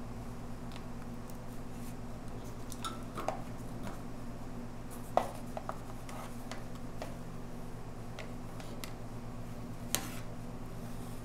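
A few light clicks and two sharper knocks as a motorcycle's chrome metal dash console is handled and lifted off the fuel tank, one knock about halfway and one near the end, over a steady low hum.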